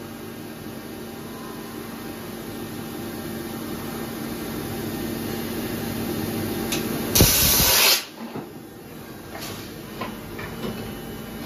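Steady hum of a Cincinnati CFV-1300 vertical machining center, then about seven seconds in a loud hiss of compressed air lasting under a second: the spindle's tool-release air blast through the taper as a tool is loaded. A few light clicks follow.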